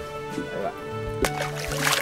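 Background music with steady held tones, with a sharp click about a second in and a brief burst of hiss near the end.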